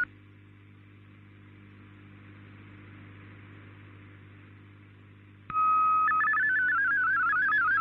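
Faint shortwave receiver hiss with a low hum for about five and a half seconds. Then an MFSK32 digital-mode signal starts suddenly: a steady tone for about half a second, then rapid warbling tones that hop from pitch to pitch as the data is sent.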